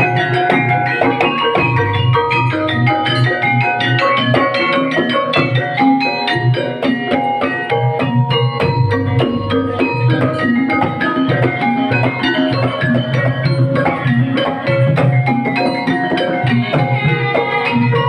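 Banyumasan gamelan music accompanying an ebeg dance: struck keyed instruments playing quick, busy runs of notes over steady hand-drum (kendang) strokes.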